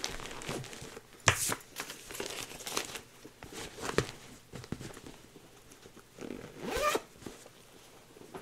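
Project bag and stitching fabric being handled: rustling and crinkling, with a few sharp clicks and knocks, the loudest about a second in and about four seconds in.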